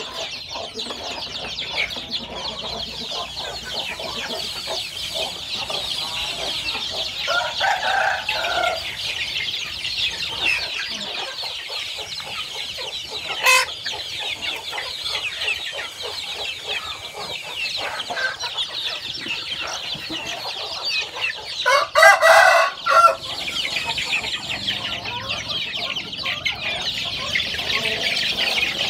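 A crowd of young chicks peeping continuously in high chirps. Louder calls from adult chickens break in twice, the louder one about three-quarters of the way through, and there is a single sharp click near the middle.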